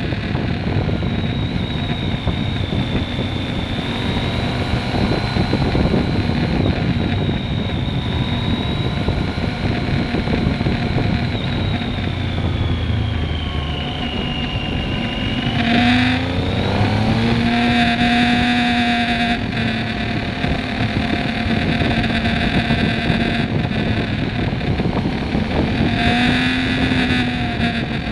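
Triumph Speed Triple 1050's three-cylinder engine running at road speed, heard through heavy wind rush on the bike-mounted microphone. About sixteen seconds in the engine note dips and then climbs again as the bike slows and accelerates.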